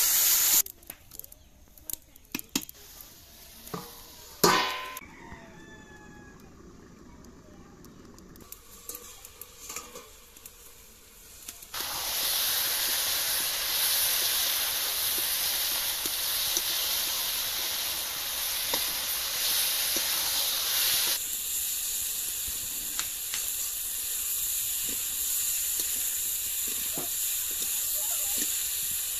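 Potatoes and spice paste frying in a kadai, with a metal spatula clicking and scraping against the pan and one sharp metal clank about four seconds in. From about twelve seconds in the pan sizzles steadily and loudly.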